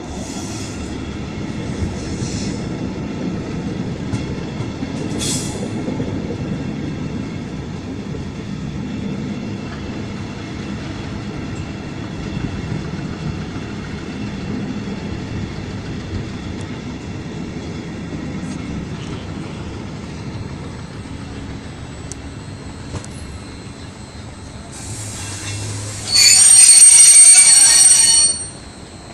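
A passenger train running slowly into a station, heard from on board as a steady low rumble of wheels on rail. About 26 seconds in, a loud high-pitched squeal lasts about two seconds as the train brakes to a halt.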